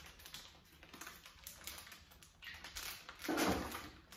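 Light clicks and taps of small decorating items and utensils being handled over cupcake tins on a kitchen counter, with a louder knock about three and a half seconds in.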